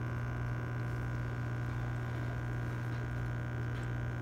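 Steady low electrical hum with fainter, higher steady tones above it, unchanging throughout.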